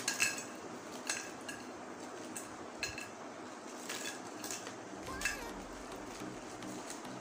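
Crispy fried dory fish skin snacks shaken out of a foil-lined snack pack into a glass bowl, with a metal spoon used to scoop them out. A series of sharp clinks as the pieces and the spoon hit the glass, several of them ringing briefly.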